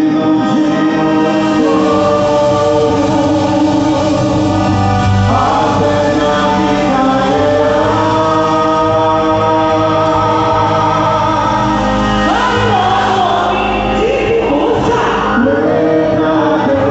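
Song with voices singing long held notes over a steady accompaniment, the pitch changing every few seconds.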